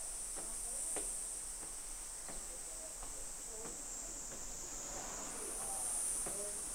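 Footsteps climbing concrete station stairs and crossing onto the waiting-room floor, a soft knock every second or so. A steady high-pitched insect chorus runs under them, with a few low cooing calls of a dove.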